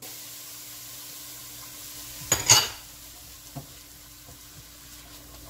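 Chopped green pepper tipped into a pot of onion frying in achiote oil, a loud short burst of sizzling about two seconds in, then a silicone spatula stirring the vegetables over a steady low sizzle with a few light scrapes.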